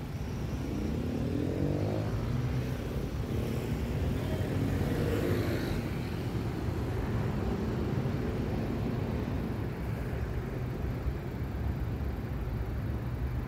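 Road traffic: car and city-bus engines running in slow traffic. An engine note rises as a vehicle accelerates about a second in, and again around the middle.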